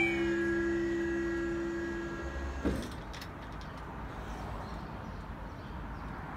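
Level crossing barrier (Smiths Industries) rising: its mechanism gives a steady hum for about two and a half seconds just as the yodalarms cut off, then stops with a single clunk as the boom reaches upright. After that, only a faint steady background rumble.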